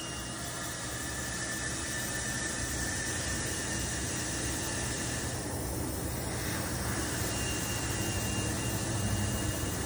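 Compressed air hissing steadily through the control valve of a 5-ton Vevor air spring jack as its three-stage bellows inflate under a truck axle, lifting the load; the hiss grows slowly louder.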